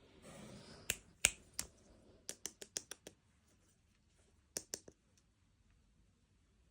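Small packaging and miniature toys handled in an unboxing: a soft rustle at the start, then sharp clicks and taps. There are three spaced clicks in the first second and a half, a quick run of about seven in under a second, then two more near the middle.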